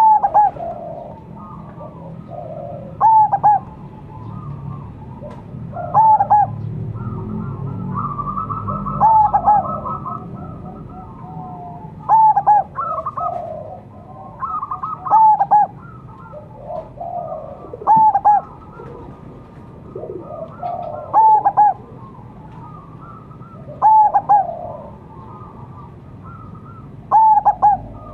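Zebra dove (perkutut) cooing: a loud, rhythmic coo phrase about every three seconds, with softer coos in between.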